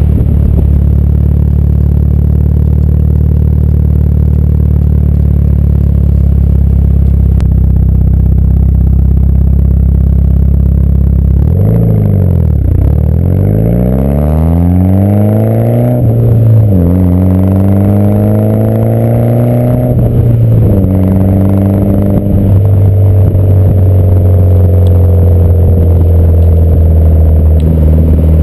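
Mitsubishi Lancer Evolution IX's turbocharged four-cylinder heard through its AMS turbo-back exhaust from right beside the tailpipe: a steady drone while cruising, then about twelve seconds in the note dips and climbs as the car pulls through the gears, with two brief breaks at the shifts, before settling into a steadier, slowly falling drone.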